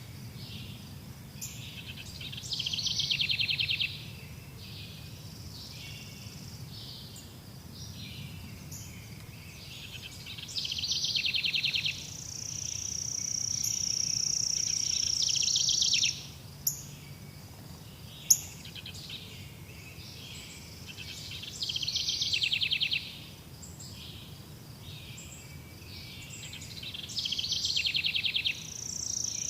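Forest birds singing: one bird repeats a short, rapid trilled phrase about every eight seconds, over a low steady background hum. Near the middle a high steady buzz runs for about four seconds, and two sharp clicks follow it.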